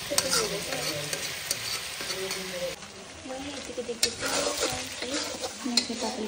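Chicken pieces and onion sizzling as they are browned in a wok, while a metal spatula stirs and scrapes the pan with irregular clicks and scrapes.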